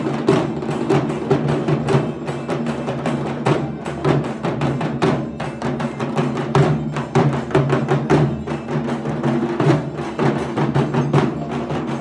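Several dhak drums, the large Bengali barrel drums played with thin sticks, beating a fast, dense rhythm together with no break.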